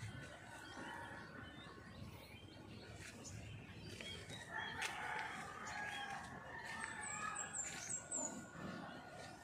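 Faint rooster crowing: one drawn-out call about halfway through. A few short, high chirps from a small bird follow just after.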